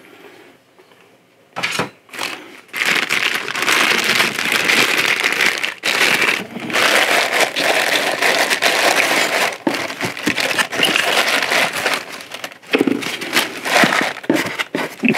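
Clear plastic bags crinkling and crackling as they are handled and unwrapped, dense and near-continuous after a quiet start, thinning out near the end.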